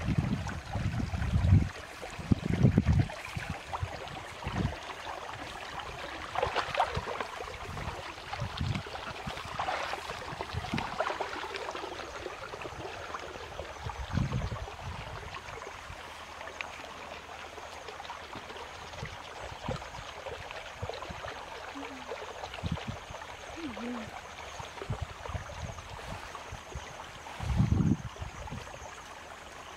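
Steady trickle of water in a shallow field ditch, with rustling and handling of a woven bamboo fish trap, and several low thumps near the start and again near the end.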